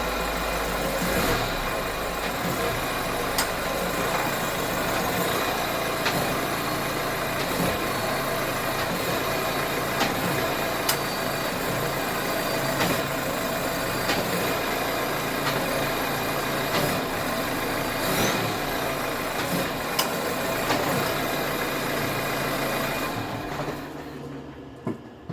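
Citroën C5's 1.6 HDi four-cylinder diesel engine idling, with a sharp knock standing out every few seconds at uneven intervals; the owner is unsure whether a failed engine mount (silent block) or something else is knocking. The engine sound falls away near the end.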